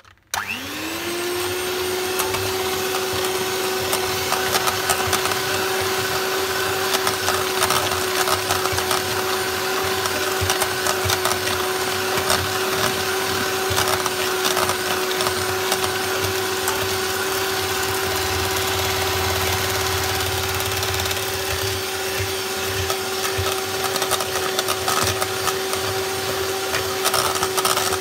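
Electric hand mixer switched on, its motor whining up to speed within about a second and then running steadily, with frequent small clicks of the beaters in the steel bowl as they beat a thick butter, sugar and egg-yolk mixture.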